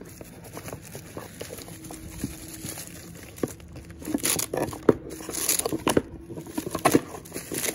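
Bubble-wrap packaging and wiring harness cables crinkling and rustling as they are handled in a cardboard box. It is faint for the first few seconds, then becomes a busy run of sharp crackles from about three and a half seconds in.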